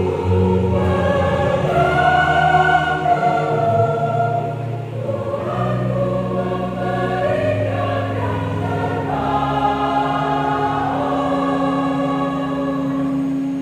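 Mixed church choir singing a hymn in parts over long held low notes that change every few seconds.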